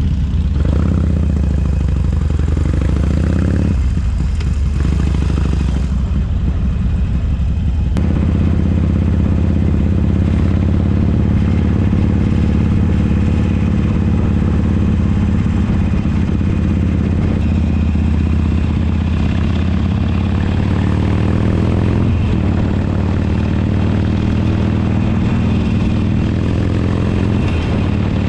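Motorcycle engine running while riding, a steady low-pitched drone that shifts in pitch a few times.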